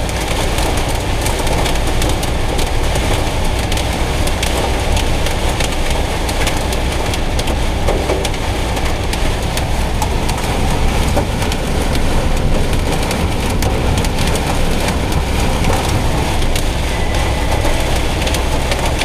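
Torrential rain and hail drumming on the roof and windshield of a Citroën Jumper van, heard from inside the cab as a loud, steady, dense patter of countless small hits over the low rumble of the engine and tyres.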